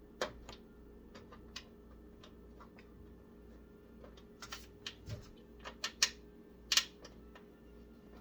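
Scattered clicks and taps of small parts being handled while assembling a PC case, the loudest two knocks coming about six and seven seconds in, over a faint steady hum.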